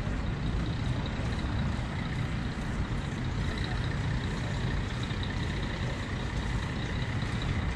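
Steady low rumble of road traffic, heavy vehicles such as buses among it, with a faint steady high whine over it.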